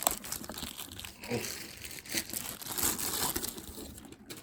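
Packaging bag being torn open and crumpled by hand: irregular crinkling and rustling with short tearing bits, dying away near the end.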